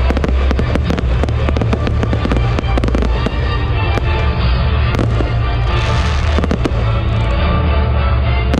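Aerial fireworks shells bursting and crackling in quick succession, thickest in the first three seconds. Loud music with heavy bass plays throughout.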